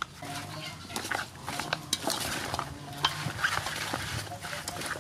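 Wooden spoon mixing raw chicken feet and sliced bitter gourd in a large steel bowl: irregular knocks and clatters against the metal and wet scraping, with short squeaky tones in between.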